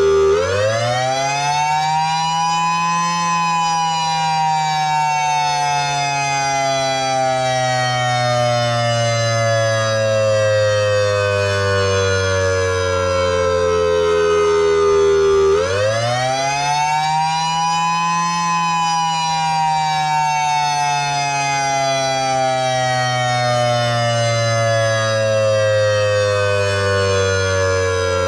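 Ion Pathfinder electronic warning siren sounding its attack signal as a wail. The pitch climbs quickly for about three seconds, then sinks slowly for about twelve, and starts climbing again about fifteen seconds in.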